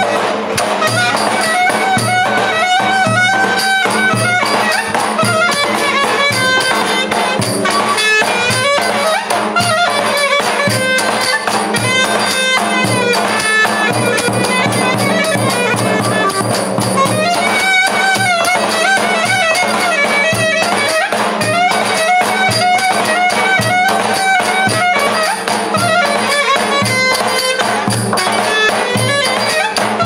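Live street folk music: a reed wind instrument plays a continuous melody over the regular strokes of a davul, a large double-headed drum beaten with a stick.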